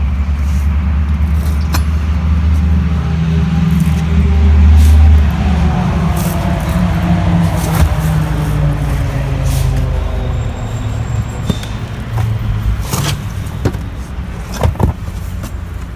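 Pickaxe striking and prying into asphalt along a saw cut: several sharp blows a second or two apart. Under them an engine runs with a steady low hum that fades after about five seconds.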